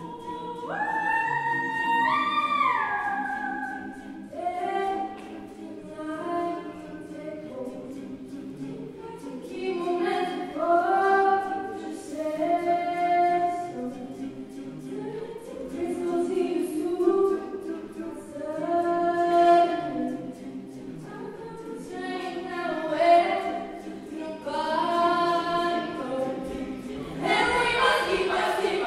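Mixed a cappella group singing, with a woman's lead voice over sustained backing harmonies from the rest of the group; the voices sweep steeply upward about a second in.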